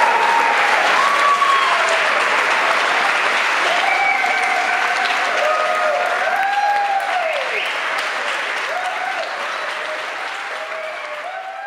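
Audience applauding, with voices cheering and calling out over the clapping; the applause slowly dies away towards the end.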